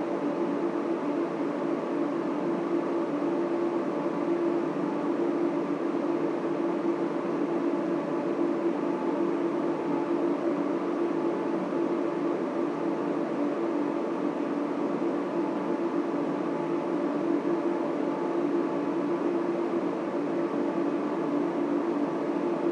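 Steady whir of data center server and cooling fans, with a constant low hum and a few held tones over an even rush of air.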